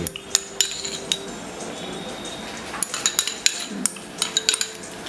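Metal clinks and taps of a table knife against a metal stovetop sandwich toaster as butter is spread on the sandwich. There are a few sharp clinks in the first second and a quicker run of them from about three seconds in.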